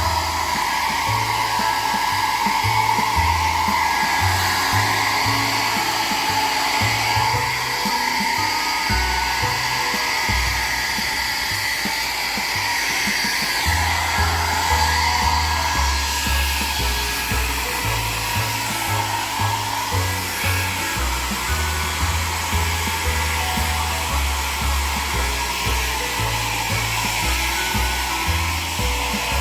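Hair dryer blowing steadily to dry a pet's coat after a bath, with background music and a low bass line underneath.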